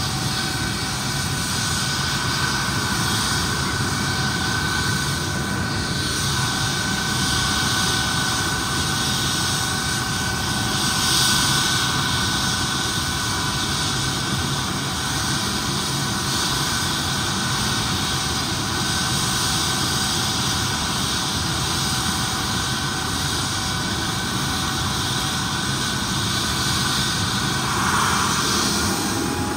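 MD900 Explorer helicopter's turboshaft engines and rotor running steadily, a constant turbine whine over a broad rushing rotor noise.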